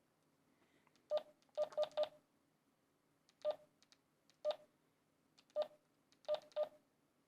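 Keypad beeps from a Retevis RT3 DMR handheld radio (a rebadged TYT MD380) as a text message is typed on it multi-tap style: about nine short beeps at one steady pitch, each with a faint button click, some in quick runs of three and others singly.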